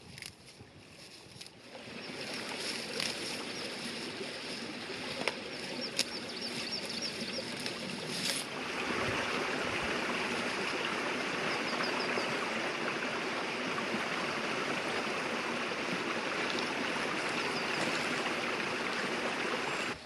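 Dry grass rustling faintly as it is pulled by hand, then a steady rush of running water that grows louder about eight seconds in.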